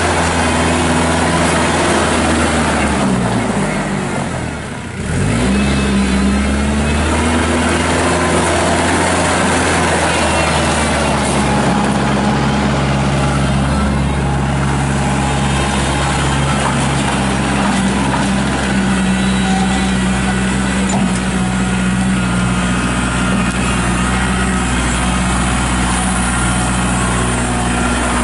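Kubota L4740 compact tractor's diesel engine running as it drives. About four seconds in the revs drop sharply and climb straight back up, then it runs steadily.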